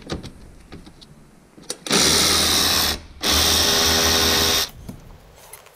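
Cordless ratchet running in two bursts, about a second and then about a second and a half, with a short pause between, as it backs out a seat-mounting bolt on the floor of the car.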